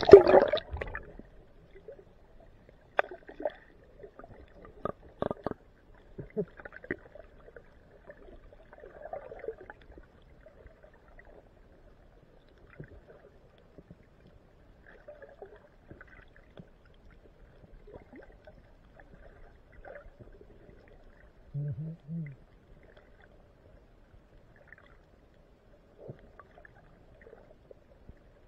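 Camera plunging into seawater with a loud splash, then muffled underwater sound: scattered knocks in the first few seconds and two short low hums about three-quarters of the way through.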